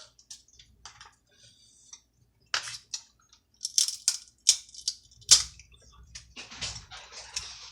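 Plastic takeout bag crinkling and crackling in the hands, with a run of irregular sharp clicks, as it is worked open without scissors.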